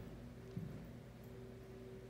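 Quiet room tone with a steady low hum, and a single soft footstep thump on the carpeted floor about half a second in.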